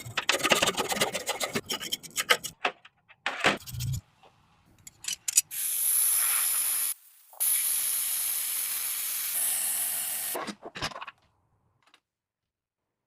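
Rough rubbing and rasping strokes, then a steady spraying hiss that breaks off briefly once and stops about ten seconds in, like car-body sanding followed by a spray gun.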